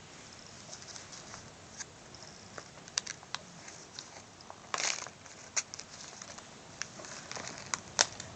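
Crinkles and scattered sharp clicks from a clear plastic bag of cat toys as a cat bites and paws at it, with a short rustle about five seconds in and a louder click near the end as the bag is picked up.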